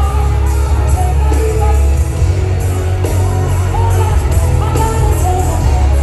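Loud amplified live concert music with a singing voice over a heavy, booming bass and a steady beat, recorded from within the stadium audience.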